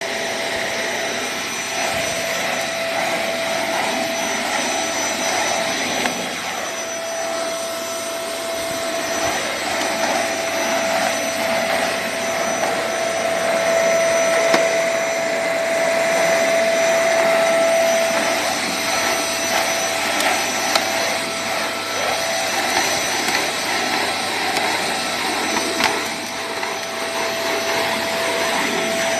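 Canister vacuum cleaner running steadily, its floor brush head pushed over artificial grass turf. The motor whines at one steady pitch over the rush of air.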